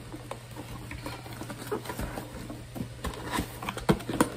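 Cardboard shipping box being handled and shifted on a table: scattered light taps, scrapes and rustles, busier near the end, over a steady low hum.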